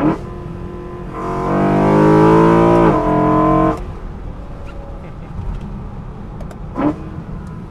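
BMW E93 M3's S65 V8, tuned with a custom exhaust and an intake plenum delete, pulling hard for about two and a half seconds with the pitch climbing, then backing off abruptly. Before and after, the car cruises lightly under a low steady rush, with a short sharp sound at the start and another near the end.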